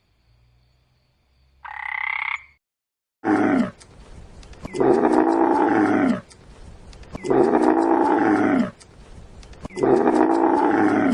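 Animal calls: a brief high-pitched call about two seconds in, then a large animal's loud, deep calls repeating about every two and a half seconds, each lasting about a second and a half.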